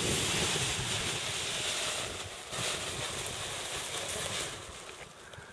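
Wind buffeting the microphone of a paraglider pilot's camera as the pilot launches from the hill: a loud, steady rush with a low rumble that drops away about four and a half seconds in.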